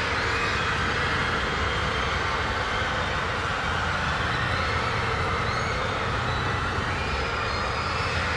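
Train running close by: a steady low rumble with a hiss over it, holding at an even level.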